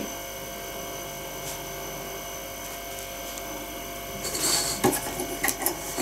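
Steady room hum, then from about four seconds in, hands handling a stainless steel whistling kettle's spring-loaded whistle cap on the spout, with a sharp click about five seconds in as the cap snaps shut.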